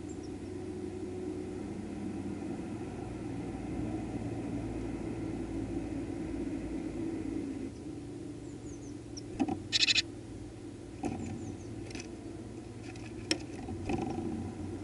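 Steady low engine-like hum, as of a motor vehicle running nearby. About eight seconds in come a few faint, short, high bird chirps, then a handful of sharp clicks, the loudest a brief rattling click about ten seconds in.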